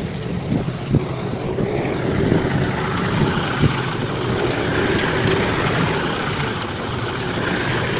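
Bulldozer's diesel engine running steadily under work, with a few short knocks about a second in and again partway through.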